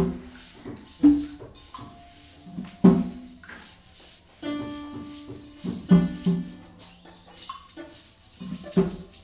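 Free improvised ensemble music: sparse, irregular percussive strikes and short pitched notes, a few held for about a second, with the loudest hits near the start and about 1, 3, 6 and 9 seconds in.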